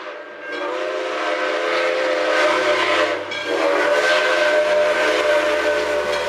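Steam locomotive chime whistle sounding a long blast of several notes at once, with steam hissing through it. It breaks off briefly about three seconds in and then blows again.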